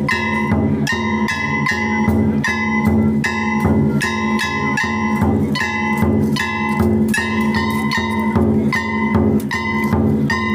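Japanese festival ōdaiko (large barrel drum) beaten in a quick, steady rhythm for a bō-furi stick dance, about two to three strokes a second, with a ringing tone sounding along with the beats.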